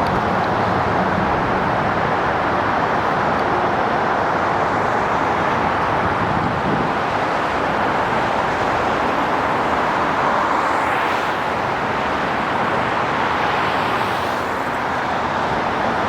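Steady highway traffic noise, with vehicles passing by about eleven and fourteen seconds in.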